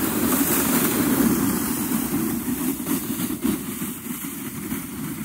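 Plastic jet sled sliding down a snowy slope, its hull scraping and hissing over the snow as a steady rumble that grows fainter after about two seconds as it moves away.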